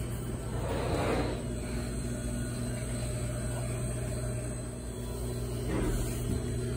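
Steady low machine hum, with two brief swells of rubbing or handling noise, one about a second in and one near the end.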